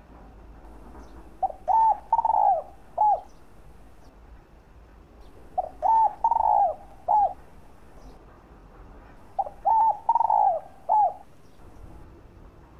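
Spotted dove cooing: three calls about four seconds apart, each a phrase of four coos with the third held longest.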